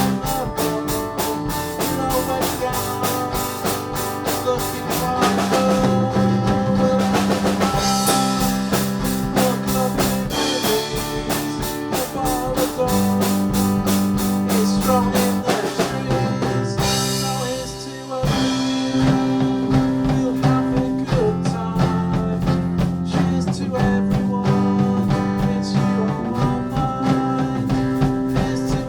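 A band's song playing: guitar over a steady drum-kit beat in a passage without clear vocals, dropping back briefly about two-thirds of the way through before the full band comes back in.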